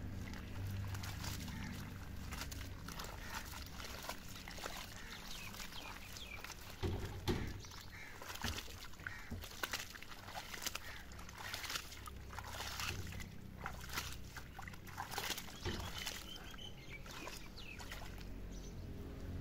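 Wet clay mud being worked by hand: irregular soft slaps and squelches, with one louder thump about seven seconds in.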